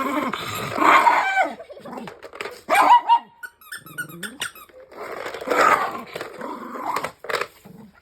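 A dog growling and barking, with the loudest barks about a second in and again near three seconds.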